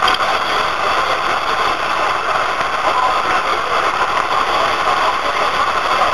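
Ghost box, a radio sweeping through stations, putting out loud, steady static with faint broken fragments and ticks in it.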